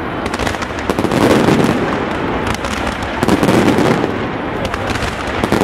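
Aerial fireworks display: a dense, continuous barrage of shell bursts and crackling stars, swelling louder about a second in and again past three seconds.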